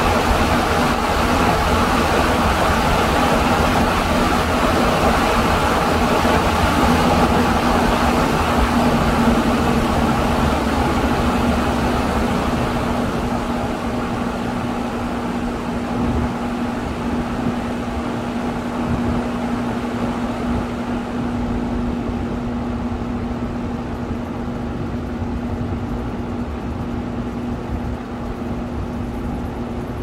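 Electric fan running on a homemade TRIAC phase-control speed controller: a rush of air from the blades over a steady motor hum. Through the second half the rush grows quieter and duller as the knob turns the fan's speed down.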